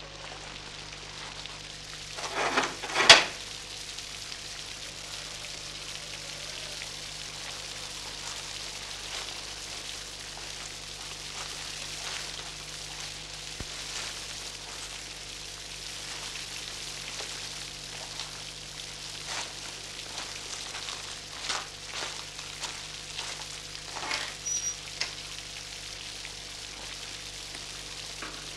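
Steady hiss and crackle of an old film soundtrack with a low hum beneath it. A loud pair of sharp knocks comes about three seconds in, and scattered fainter knocks come later on.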